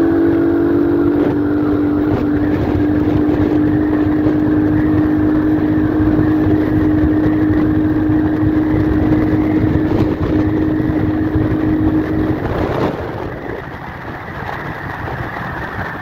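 Vento Lithium 190cc motorcycle engine running at a steady pitch while riding, under a heavy rush of wind noise. About twelve seconds in the engine note drops out and the sound eases.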